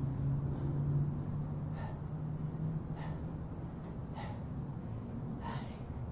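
A man breathing hard during bodyweight squats, with a sharp gasping breath about every second and a bit, one for each rep, from heavy exertion. A low steady hum runs underneath.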